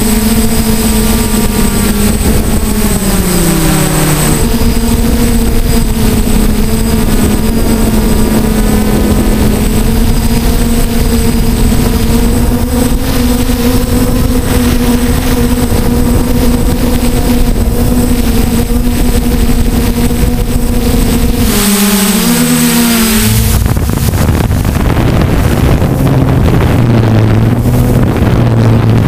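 DJI F450 quadcopter's brushless motors and propellers whining steadily in flight, over wind noise. The pitch dips briefly twice as the throttle changes, about three seconds in and again past the twenty-second mark. For the last few seconds it runs at a lower pitch.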